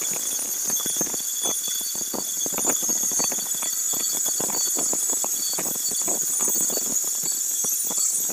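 Electric angle grinder with a thin cutting disc running under load, cutting through rusty steel plate: a steady high motor whine with irregular rough scraping as the disc bites into the metal.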